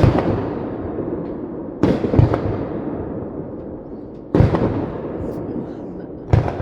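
Aerial firework shells bursting overhead. There are four big booms about two seconds apart, the second a double, and each one trails off in a long rolling rumble.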